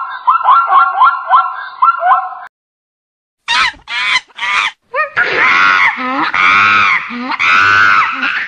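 A zebra's barking call, a fast run of short rising yelps, stops about two and a half seconds in. After a second's gap a monkey calls: three short sharp cries, then long, loud wavering screeches.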